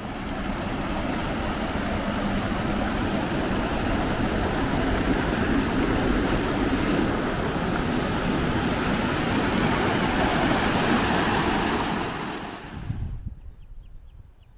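Wind buffeting the microphone: a steady rushing gust with a deep rumble that dies away quickly about thirteen seconds in.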